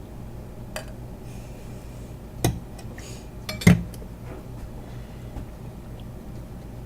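Dishes and utensils clinking and knocking a few times, the loudest knocks about two and a half and three and a half seconds in, over a low steady hum.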